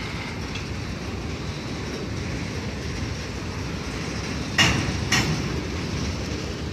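Freight cars of a long mixed freight train rolling past, a steady rumble of steel wheels on rail. Two sharp clanks about half a second apart come a little after halfway.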